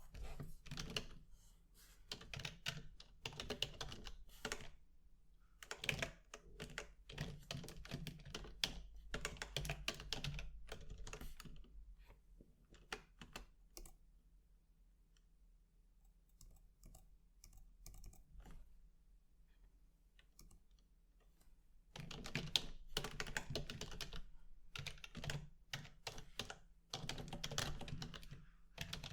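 Typing on a computer keyboard: runs of quick key clicks that thin to scattered taps for several seconds in the middle, then fast typing again near the end.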